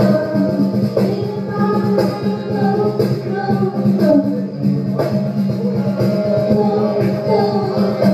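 Live band playing a pop song cover, with acoustic guitar and a steady beat.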